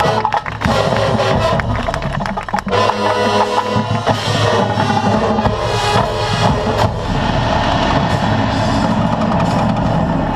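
Marching band playing in full: sustained wind chords over a drumline with bass drums. About seven seconds in, the upper chords drop away while the lower parts and drums carry on.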